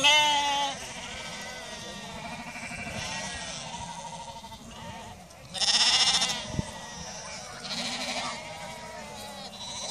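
A flock of Icelandic sheep bleating in chorus, many calls overlapping. Loud bleats come right at the start and again about halfway through, with quieter ones in between.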